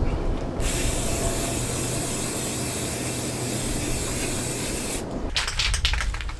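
Aerosol spray-paint can spraying: one continuous hiss that starts about half a second in and cuts off about five seconds in, followed by a quick run of clicks.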